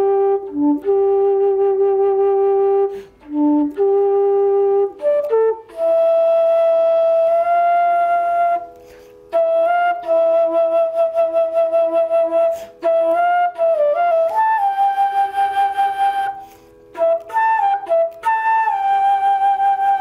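Solo flute playing a slow melody of long held notes, broken by short breaths. Low notes give way to higher ones about six seconds in, with quick repeated notes and small pitch slides in the middle.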